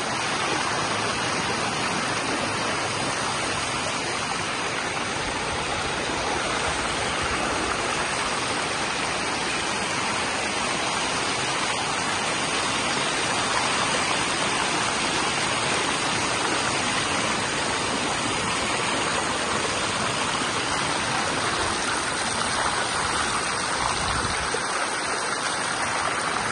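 Fast-flowing floodwater rushing in a steady, even torrent.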